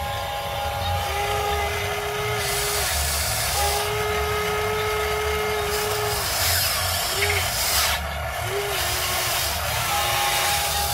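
Huina 580 RC excavator's motors whining as the arm and bucket move through dirt. Several steady whines start and stop, with short pitch slides at the starts and stops, over a constant hiss.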